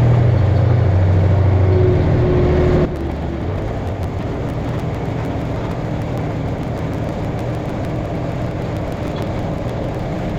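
An engine running steadily with a low hum. About three seconds in it drops suddenly in level and carries on rougher and noisier.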